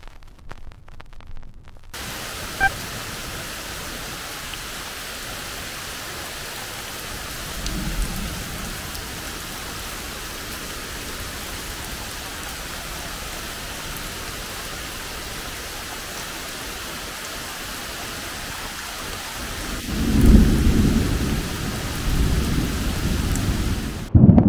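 Heavy rain falling steadily, heard through a camera muffled by water that has got inside it. A small low rumble comes about eight seconds in, and a much louder, long rumble of thunder rolls in near the end.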